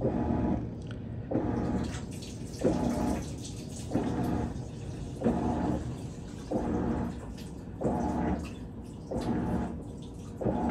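Avanti top-load washer's motor driving the wash plate in short strokes at the start of its auto water level (load-sensing) cycle: a humming stroke about every 1.3 seconds, towels shifting in the tub between strokes.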